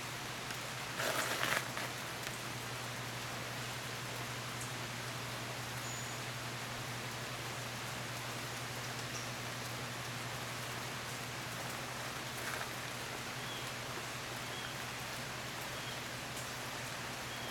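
Steady outdoor background hiss, like light rain or running water, over a low steady hum. A brief louder noisy burst comes about a second in, and a few faint short high chirps sound now and then.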